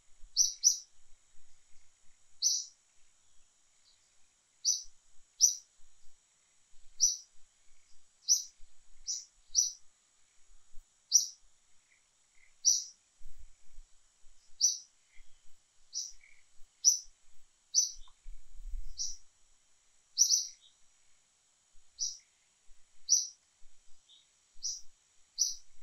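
A bird chirping over and over: short, sharp, high-pitched chirps about every one to two seconds, often in quick pairs, over a faint steady high hiss.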